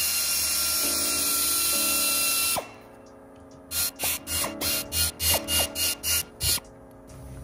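Cordless 3/8-inch power driver with a T30 star bit running steadily for nearly three seconds, its pitch stepping up twice, then a quick run of about ten short trigger bursts, at work on the bolts of a CP4 high-pressure fuel pump.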